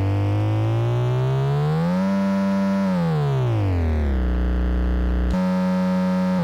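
Arduino-based VCO Chords eurorack oscillator playing a sustained synthesizer chord. Its pitch glides up over about two seconds, holds, slides back down, then jumps abruptly to a new chord about five seconds in.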